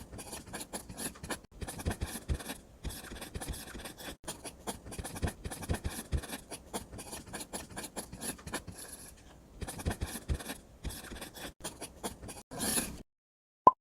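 Irregular scratching and scraping of a small tool on a hard material, dense with small clicks, typical of miniature construction work. A brief louder hiss comes near the end, and then it stops.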